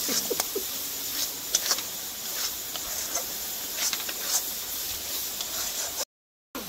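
Masala paste of onion, ginger-garlic, chili powder and turmeric sizzling in hot oil in a metal kadai, with a metal spatula scraping and clicking against the pan as it is stirred. The sound cuts out for about half a second near the end.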